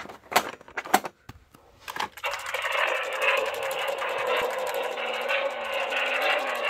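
Handling knocks as the toy is picked up. Then, from about two seconds in, a Shake N Go toy car's built-in electronic engine sound plays continuously through its small speaker as the car is shaken.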